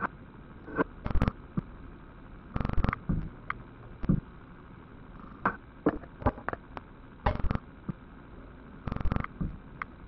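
A moth fluttering and bumping against a hard surface: scattered soft taps and a few short rattling bursts of wingbeats, irregularly spaced. The loudest burst comes just over a second in.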